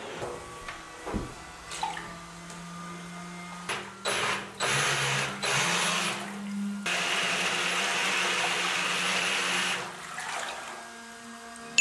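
Brushless motor of a 3D-printed RC jet boat whining as it drives the jet pump in a bathtub, with water churning and spraying from the jet. It is throttled up in several short bursts and then held for about three seconds before easing off.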